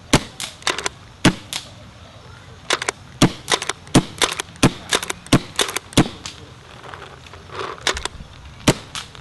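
Sanchez Machine SM1 pump paintball marker with CCM internals firing repeatedly: a quick string of sharp pops over the first six seconds or so, then a single shot near the end.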